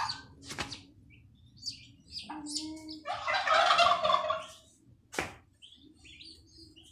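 Turkey poults peeping with short, high calls, with two sharp taps. About three seconds in comes a louder burst of noise lasting just over a second.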